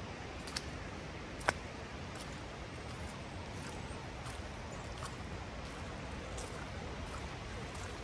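Footsteps on a wet, muddy path: a short squelch or click roughly once a second over a steady background hiss, one step about a second and a half in sharper than the rest.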